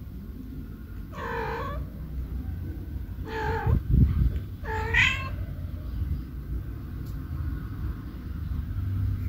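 A cat meowing three times in the first five seconds, over a steady low rumble, with a dull low thump about four seconds in.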